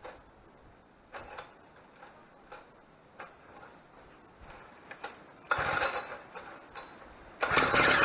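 Vintage minibike's two-stroke engine being pull-started. There are a few light clicks, then a pull on the starter about five and a half seconds in, and near the end the engine catches and runs with a fast, even beat.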